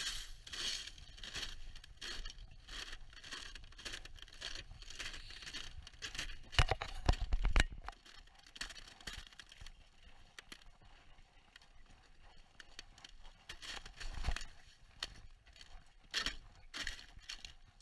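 Footsteps crunching through crusty snow, a crisp step about every half second to second, with a short loud low rumble about seven seconds in; in the second half the steps come fainter and further apart.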